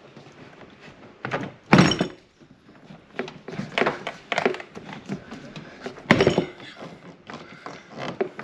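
Toyota Land Cruiser 200 Series rear door trim panel being pulled off the door, its plastic retaining clips popping loose. There is a loud thunk about two seconds in and another about six seconds in, with smaller clicks and knocks of the plastic trim between them.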